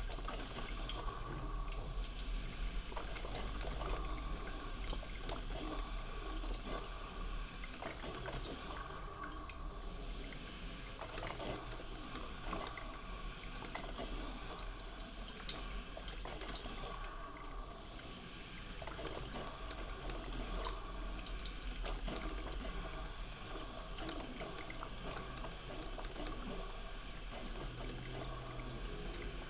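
Coffee maker brewing: water gurgling and trickling without a break, with a steady low hum underneath.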